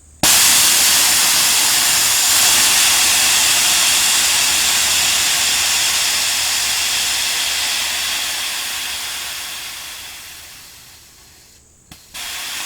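Compressed air hissing out of an air compressor's tank as it is bled down from about 150 psi. It starts suddenly and loud, then fades as the pressure drops and dies out about eleven seconds in. After a click, a second, steady hiss starts just before the end.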